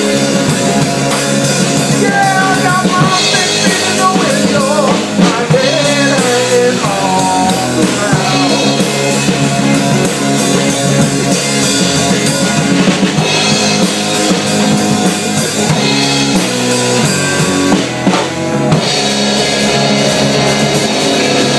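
A live rock band playing loud blues rock on drum kit and amplified electric guitar. Notes slide up and down in pitch during the first several seconds.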